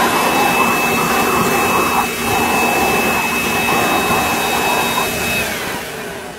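Leaf blower running steadily with its nozzle in a dog's mouth, a loud rush of air with a thin steady whine over it. Near the end the whine drops in pitch and the sound fades as the blower winds down.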